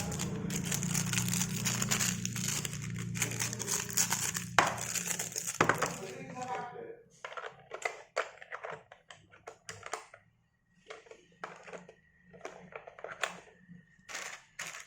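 Plastic packaging crinkling and rustling, with light clicks and taps of plastic board game pieces being handled. Dense rustling for about the first six seconds, then scattered short crinkles and clicks.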